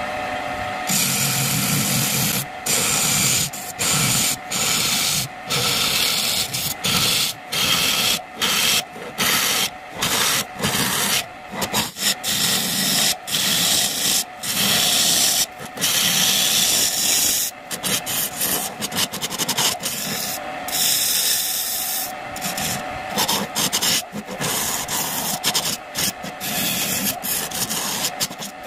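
Turning tool cutting the inside of an acacia-wood vase on a spinning wood lathe: a harsh scraping hiss in many short passes, broken by brief gaps as the tool comes off the wood, starting about a second in.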